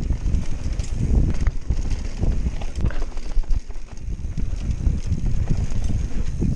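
Wind buffeting the action camera's microphone over the rumble of knobbly tyres on a dry dirt trail, as a Canyon Spectral AL 7.0 EX mountain bike descends at speed. Frequent irregular knocks and rattles come from the bike as it runs over bumps.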